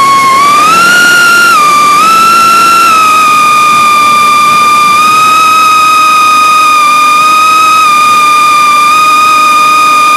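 Eachine Lizard 105S micro FPV racing quadcopter's motors whining in flight, heard through the onboard camera. The high whine rises with throttle about half a second in, drops back a second later, then holds steady.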